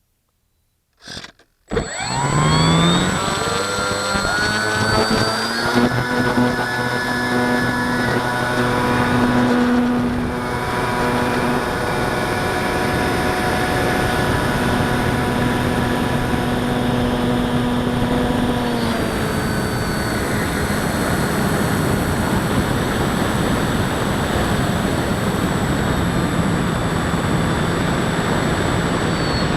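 Electric motor and propeller of a ParkZone Sport Cub RC plane spooling up with a rising whine about two seconds in, then running steadily over a rush of air. The pitch drops a little around nineteen seconds in as the throttle is eased back.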